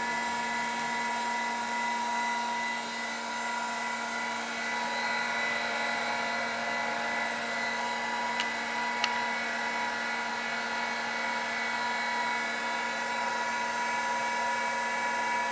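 Surface grinder's spindle motor and wheel running steadily, not cutting, a steady hum with a whine. Two light clicks a little past halfway.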